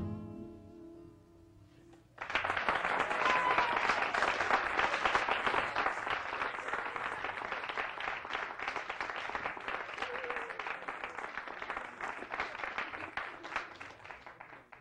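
The last chord of a jug band song dies away, then an audience starts applauding suddenly about two seconds in, clapping steadily and thinning out near the end.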